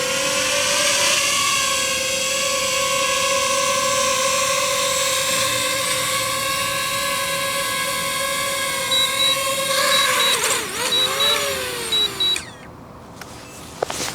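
DJI FPV drone's propellers whining steadily as it comes in to land in stable mode. About ten seconds in, the pitch wavers and slides down as it touches down, and the motors cut off suddenly near the end. Short beeps come about once a second just before the motors stop.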